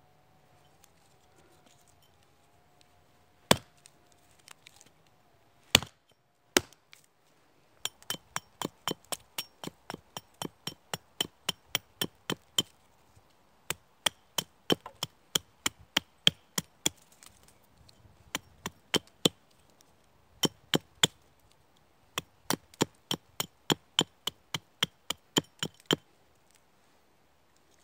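A hatchet chopping a small stick of wood. A few single, heavy strikes come first, then quick runs of lighter, sharp knocks, about three or four a second, as the blade works into a stick held upright on a stump and chips it away.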